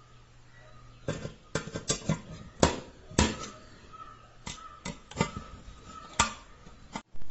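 Sharp, irregular metallic clicks and knocks, about a dozen over five seconds, as a screw is driven with a screwdriver into a sheet-metal amplifier cabinet and the steel case is handled.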